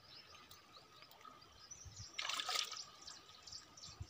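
River water sloshing and trickling around hands handling a fish and cast net in shallow water, with a louder splash about two seconds in.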